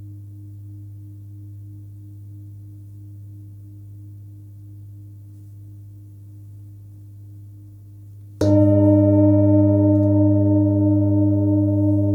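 A 27 cm Full Moon forged singing bowl with a fundamental of about 101 Hz (G/G#). At first it hums low and quiet as an earlier tone dies away. About eight seconds in it is struck sharply and rings out loudly, with many steady overtones above the deep fundamental and a slow wavering beat.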